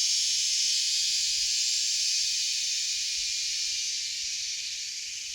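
Steady, high-pitched drone of an insect chorus, easing off slightly toward the end.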